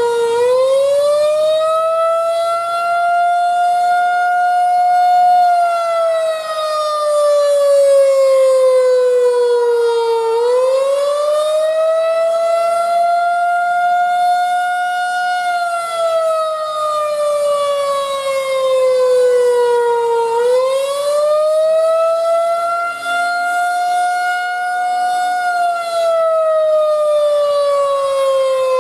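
Federal Signal 2001-130 electromechanical outdoor warning siren sounding a wail during a siren test. Its pitch climbs over about two seconds, holds, then slides slowly down, and the cycle repeats about every ten seconds.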